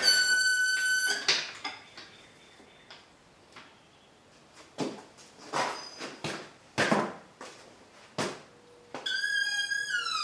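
Engine hoist squealing as its boom is let down with an engine hanging from it: one steady squeal about a second long at the start, and another near the end that drops in pitch as it stops. In between come several metal clanks and knocks.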